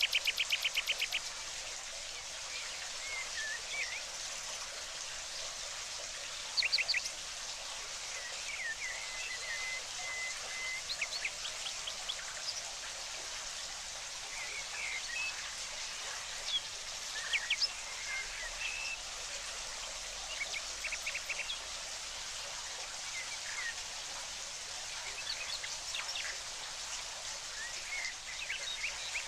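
Steady hiss of water with small songbirds chirping intermittently over it. A fast, loud trill of repeated notes ends about a second in, and short chirps and calls come scattered through the rest.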